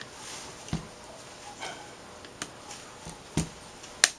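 Plastic clips on an LCD panel's backlight assembly clicking loose as they are pried with a small flathead screwdriver: about five scattered clicks and knocks, the sharpest near the end.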